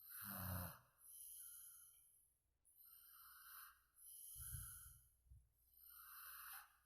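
A sleeping person snoring: a repeating cycle of hissing breaths about a second apart, with a low rattling snore at the start and again about halfway through.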